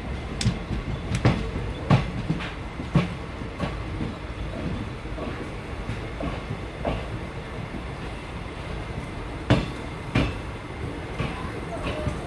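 Moving train heard from aboard: a steady low rumble of the carriage, with sharp clacks of the wheels over rail joints, a quick run of them in the first few seconds and two more near the end.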